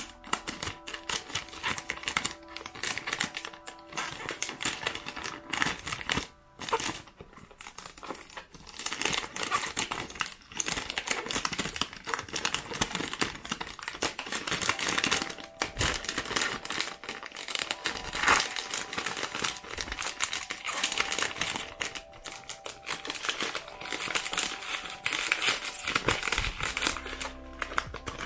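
Clear cellophane shrink wrap crinkling and crackling as it is peeled off a candle box and crumpled in the hand, with a short pause about six and a half seconds in.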